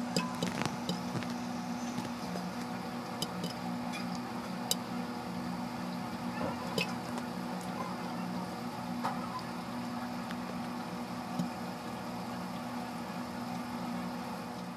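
Popcorn kernels popping inside a closed pressure cooker: sharp pops, several in the first second, then fewer and farther apart as the batch nears done, over a steady low hum and hiss.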